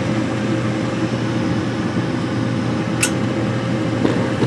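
Trane XE80 gas furnace running in its ignition sequence, its draft inducer fan giving a steady hum with a thin whine, while the new hot-surface igniter warms up; a single sharp click comes about three seconds in.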